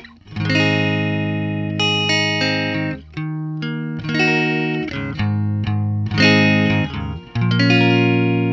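Electric guitar played clean, without any freeze effect: a slow run of chords, each struck and left to ring and fade before the next, about one a second.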